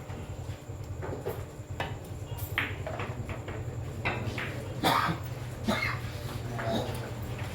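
Pool balls clicking against each other in play, with one sharp click about five seconds in, over a steady low hum and faint background voices.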